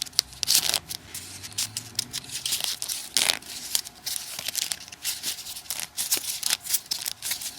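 Folded paper origami units rustling and crinkling as they are slid onto the points of a modular 3D origami model, in an irregular run of short, crisp scrapes and taps.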